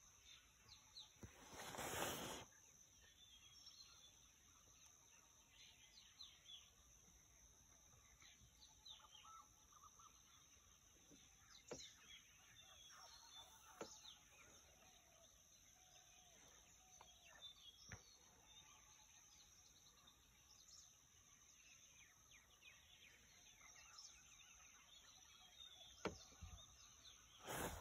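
Quiet forest ambience: faint, scattered bird chirps over a steady high hiss, with a short noisy burst about two seconds in and a few faint clicks.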